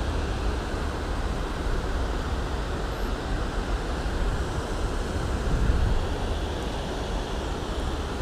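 Wind buffeting the camera's microphone as a steady, fluttering rumble, over the even rush of water spilling across a low river weir.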